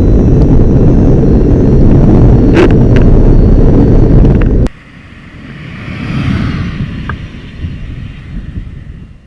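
Fiat 600 Elettra electric car driving: loud wind and road rumble on the microphone with a faint high steady whine. It cuts off abruptly about halfway through, and the car is then heard passing by, swelling to a peak and fading away.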